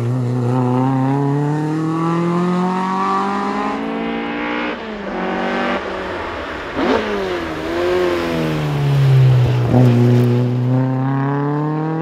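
BMW 2002's four-cylinder engine revving hard under acceleration. The engine note climbs steadily and falls back sharply several times at gear changes, then climbs again.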